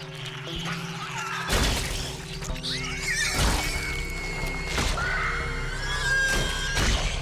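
Tense film score with a swarm of rats squealing: shrill wavering squeals start about a second and a half in. Several sudden heavy hits come over them.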